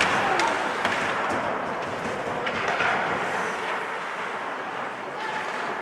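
Ice hockey game sound: a steady hiss of skates scraping the ice, with a few sharp stick-and-puck clicks in the first second or so.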